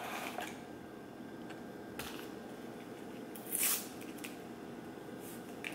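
Small paper and plastic test-kit packaging being handled over quiet room tone: a faint click about two seconds in, and a short rustle, the loudest sound, a little after three and a half seconds.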